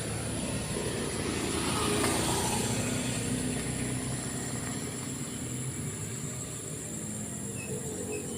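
A motor vehicle's engine hum passing by, loudest about two seconds in and fading away after about five seconds. Steady high insect buzzing continues throughout, with a few short chirps near the end.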